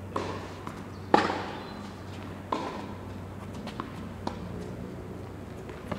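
Tennis rally on an indoor hard court: the ball pops off the rackets and bounces, each hit ringing with echo in the hall. The loudest strike comes about a second in, with lighter hits after it.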